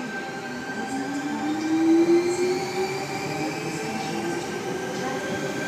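Sydney Trains Tangara (T-set) electric train pulling out of the station. Its motors give a rising whine as it picks up speed, loudest about two seconds in, over a steady electrical hum.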